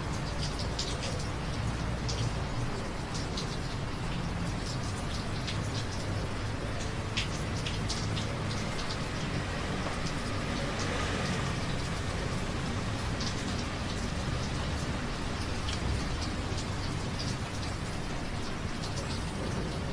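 Steady rain falling, with scattered individual drops ticking close by over a low, even rumble.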